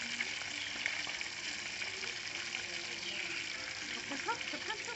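Whole fish frying in oil in a wok on a portable gas stove: a steady sizzle. A few short rising squeaks near the end.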